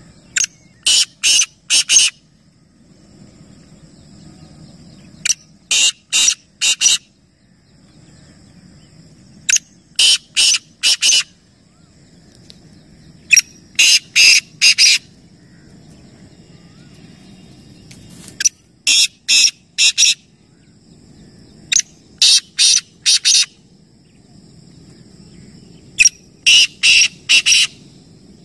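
Black francolin (kala teetar) calling: a phrase of four or five short, loud, quick notes about every three to four seconds, seven phrases in all.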